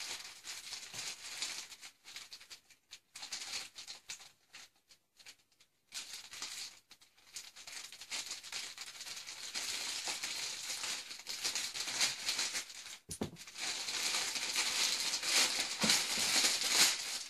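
Plastic postal mailer bag crinkling and rustling as it is opened and a plastic-wrapped item is pulled out of it. There is a quieter stretch a few seconds in, and the crinkling gets busier and louder over the last few seconds.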